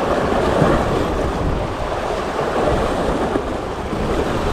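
Choppy sea waves washing against a rocky shore, with wind buffeting the microphone in a low rumble.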